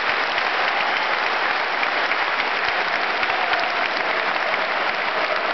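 Large stadium crowd applauding steadily, with hand claps close by.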